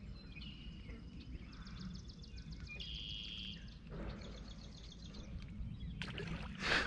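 Faint birdsong: high, rapidly repeated trills and a short steady whistled note, over a low steady rumble.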